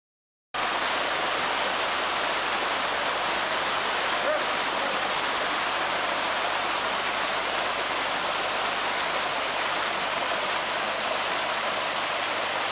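Small stream cascading over mossy rocks, a steady rushing splash of water that cuts in suddenly about half a second in.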